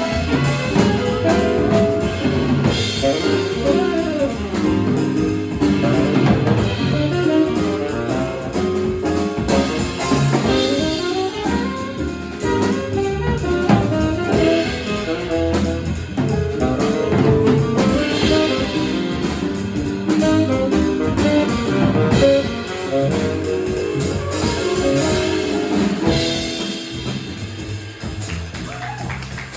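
Live jazz quartet of saxophone, piano, bass and drums playing, with fast melodic lines over a steady drum-kit groove and cymbals.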